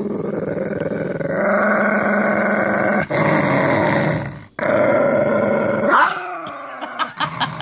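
Lhasa apso dog growling in three long, unbroken growls with short breaths between them about three and four and a half seconds in, trailing off into softer sounds about six seconds in.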